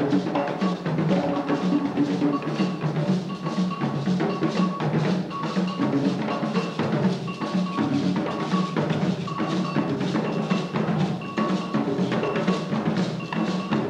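Live West African drum ensemble of hand drums and a stick-played drum, playing a fast, steady rhythm with a short high ringing note repeating over it.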